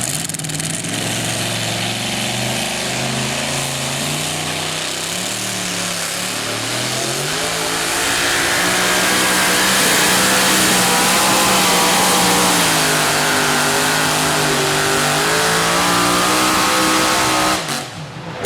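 Pickup truck engine running hard under load in a truck pull, its pitch rising and falling. It gets louder about halfway through and drops off suddenly near the end.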